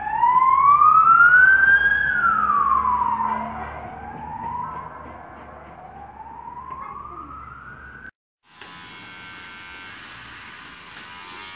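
A siren wailing, its pitch sweeping slowly up and down, loud at first and fading over several seconds. After a brief break about eight seconds in, an electric hair clipper buzzes steadily as it trims the ends of long hair.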